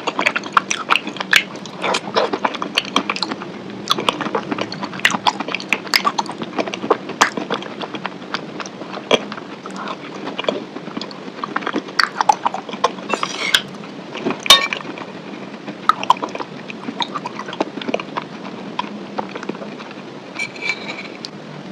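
Close-miked eating of chicken wings: irregular wet chewing and biting, with many sharp crunches and mouth clicks.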